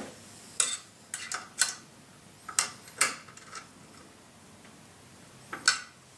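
Sharp, irregular clicks and light metallic taps in three short clusters, from tools and aluminium machine parts being handled.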